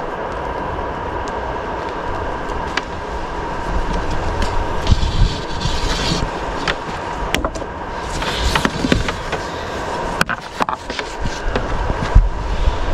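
Rustling and scattered clicks and knocks of a cable and gear being handled, over a steady low rumble.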